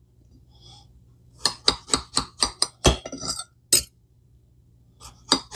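A kitchen knife clinking against a ceramic plate as a tomato is sliced into wedges on it: a quick run of about a dozen sharp taps, a short pause, then more taps near the end.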